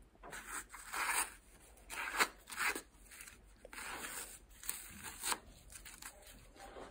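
An elastic shoulder spica wrap and its athletic tape being cut and pulled off the shoulder: a run of irregular scratchy rasps and rustles, settling down after about five seconds.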